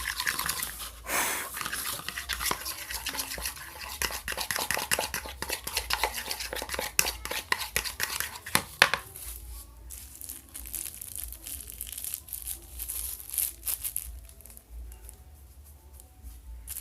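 Glue slime being stirred in a container, making rapid sticky scraping and clicking that comes thick and fast for the first nine seconds or so, then turns sparser and quieter. The slime is starting to thicken and set as the boric-water and baking-soda activator works in.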